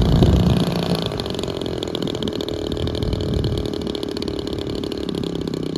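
Single-cylinder two-stroke DLE 55RA gas engine on a 1/5-scale P-51D model airplane, running on the ground. It is a little louder in the first second, then settles to a steady idle as the model taxis on grass.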